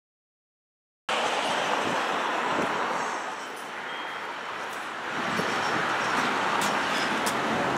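Silence for about a second, then steady street and traffic noise that starts suddenly and runs on, easing slightly in the middle.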